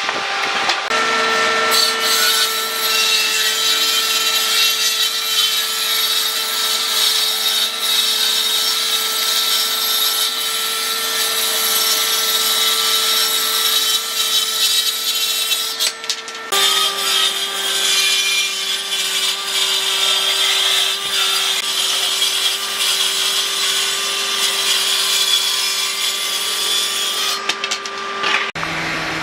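Electric woodworking power tool running and cutting wood, a dense steady noise over an even motor hum. About halfway through, the sound changes abruptly and the hum settles a little lower, as a second cut begins.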